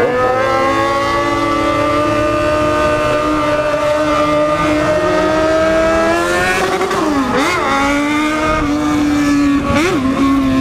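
Yamaha XJ6 motorcycle's inline-four engine and exhaust running loud under way, its pitch climbing slowly as the bike accelerates. The pitch dips briefly and comes back up about seven seconds in, and twice more near the end.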